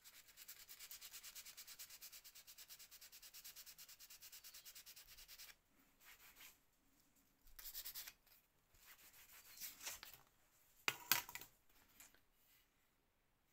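Fine sandpaper rubbed rapidly back and forth on a wooden hiking-stick shaft, several strokes a second, smoothing the spot where a wood-burned line was scraped back. It stops about five seconds in, followed by a few short, scattered rubs and one sharper scrape near the end.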